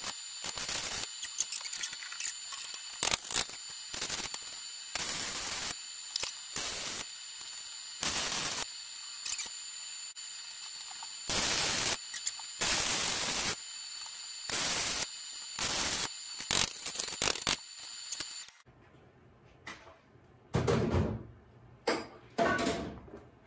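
Electric welder laying short tack welds on a steel go-kart motor-mounting plate: about a dozen bursts of arc noise, each under a second long, with a steady high whine underneath that stops about three-quarters of the way through. A couple of softer handling sounds follow near the end.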